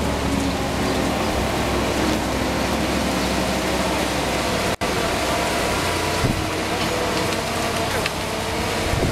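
Boat travel lift's engine running steadily as the lift drives across the yard carrying a sailboat in its slings, with a brief dropout just before halfway.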